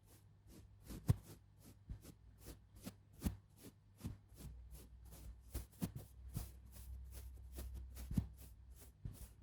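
Run of soft, irregular taps and brushing strokes, about two to three a second, from hands working makeup tools in an ASMR makeup simulation, over a faint low hum.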